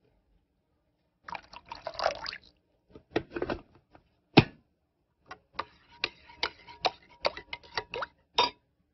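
Thick tomato sauce simmering in a pan, its bubbles bursting in irregular pops and short splutters, with one louder pop about four seconds in.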